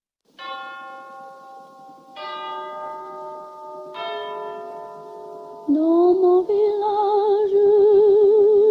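Three bell strikes about two seconds apart, each on a different pitch and left ringing. Then, about six seconds in, a woman's singing voice comes in with a rising glide and a held note with wide vibrato, louder than the bells.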